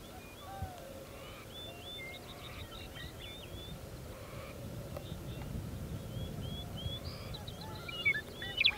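Several small birds chirping and whistling in short rising and falling notes, with a low rumble swelling in the middle and a burst of sharp notes near the end.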